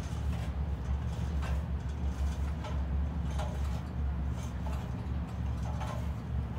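Boots stepping down the rungs of an aluminum extension ladder: a series of light metallic knocks, some with a short ring, over a steady low rumble.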